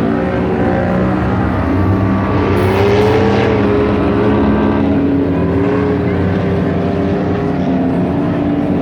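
Off-road vehicle engine running and revving, its pitch rising and falling, with a steady engine drone underneath.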